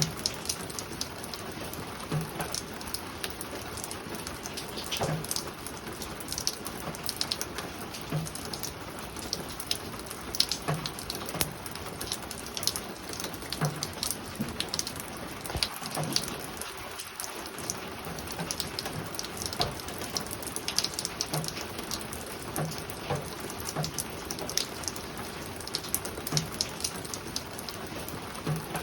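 Spring rain falling on a roof: a steady patter of many small drop taps, with a few louder single drops landing every second or two.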